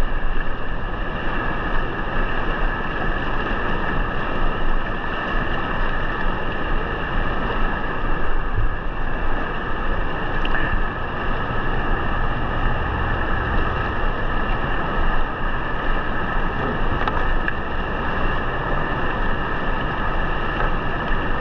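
Whitewater rapid on the Colorado River rushing steadily, a continuous wash of churning water.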